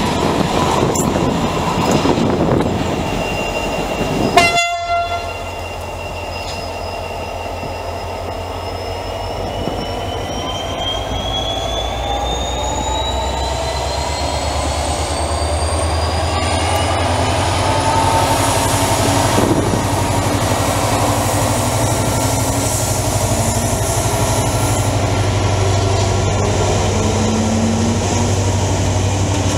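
A train rolls past close by, and the noise cuts off sharply about four seconds in. A diesel locomotive then hauls a freight train past: a steady low engine drone with a whine that rises slowly in pitch as the train picks up speed, and wagons rolling by near the end.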